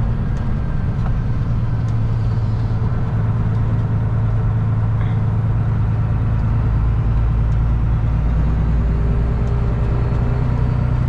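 Semi-truck's diesel engine running steadily in gear on the road, heard from inside the cab as a constant low drone with road noise.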